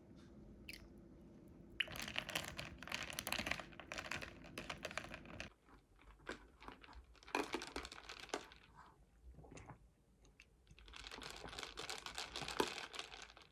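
Typing on a computer keyboard in two quick runs of key clicks, with scattered single keystrokes between them.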